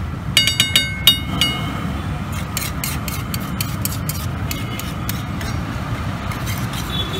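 Wide metal spatula scraping and stirring egg masala across a large flat iron griddle, in repeated strokes. About half a second in comes a quick run of five or six ringing metal clangs, the loudest sounds. A steady low rumble runs underneath.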